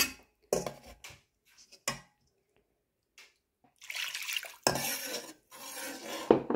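Slotted metal spatula knocking and scraping against a steel cooking pot while water is poured from a cup into the masala. A few separate clinks come first, then a longer stretch of clattering and splashing from about four seconds in.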